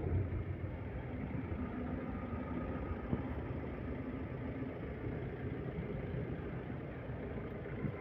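A vehicle engine running steadily at idle, with one short knock about three seconds in.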